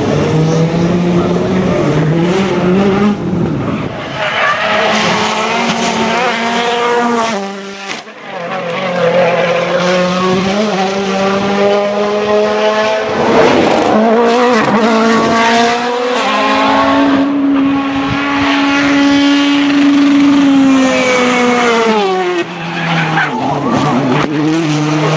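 2017 World Rally cars, with turbocharged 1.6-litre four-cylinder engines, driven flat out on a rally stage. The engines rev up and down repeatedly through the gears. The sound dips briefly about a third of the way in and again near the end.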